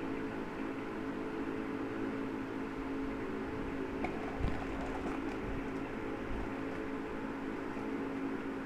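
Steady mechanical hum of a running household appliance, with a couple of light knocks about four seconds in.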